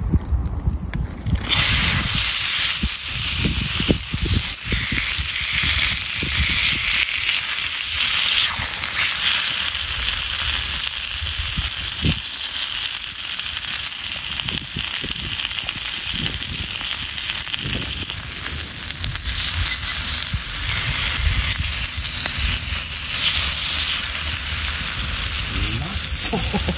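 A thick block of beef searing in a steel frying pan over a wood fire, sizzling steadily from about two seconds in, once it lands in the hot pan. Short crackles from the fire come through now and then.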